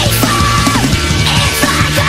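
Nightcore version of a heavy rock song: sped-up, pitched-up music with a driving beat and a high melodic line.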